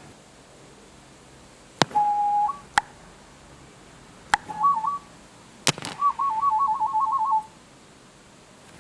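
Whistled sound effects in three phrases: a held note that steps up at its end, a short up-and-down figure, then a fast warble between two pitches for about a second and a half. Sharp clicks come just before each phrase.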